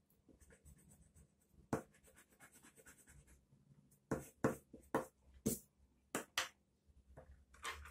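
A colored pencil scratching across paper in a run of short, separate strokes, most of them bunched in the second half.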